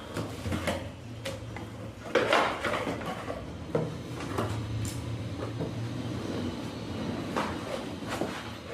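A ceiling fan's box and packaging being handled during unboxing: scattered knocks and clicks, with a louder rustle about two seconds in.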